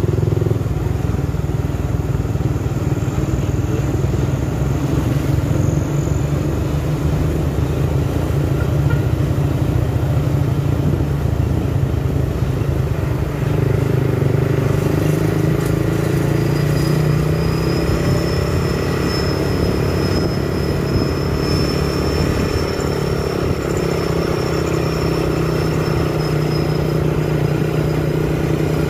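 Steady low drone of engines from a loaded sugarcane truck going down a steep hill and the vehicle following close behind it. About halfway through, the sound grows fuller, and a thin high whine comes in for several seconds.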